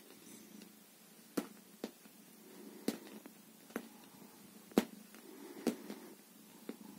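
About seven faint, sharp clicks at uneven intervals, roughly one a second: a cat's claws catching and pulling at the sofa's upholstery fabric as it scratches at it lying on its side.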